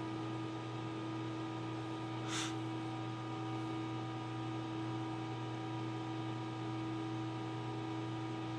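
Steady electrical hum with a low drone and several higher tones over an even hiss, and a brief soft rustle about two seconds in.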